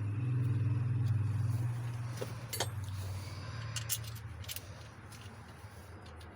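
A low engine drone, loudest in the first couple of seconds and then fading away, like a motor vehicle moving off. A few sharp metallic clicks come in the middle, typical of hand tools on metal.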